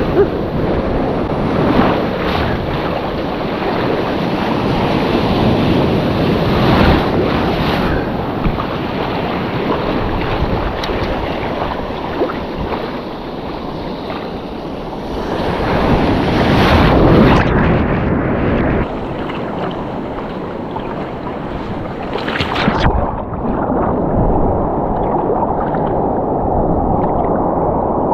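Sea surf washing and breaking against the shore, with wind buffeting the microphone. It swells a few times, and the sound turns duller about two-thirds of the way through.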